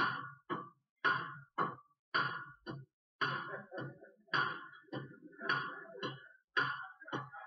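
Rhythmic metallic banging on the pipes under a kitchen sink, about two strikes a second, each clang dying away quickly. Heard through a television speaker.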